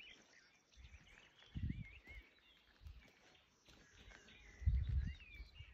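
Small birds chirping and twittering in scrub, quiet and scattered. Two short low rumbles break in, one about a second and a half in and a louder one near the end.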